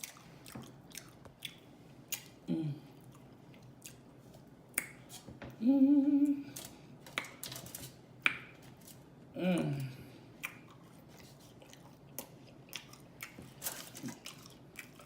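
Close-miked open-mouth chewing and lip smacking, a steady run of small wet clicks, broken by a few short hummed "mm" sounds from the eater. The loudest and longest comes about six seconds in.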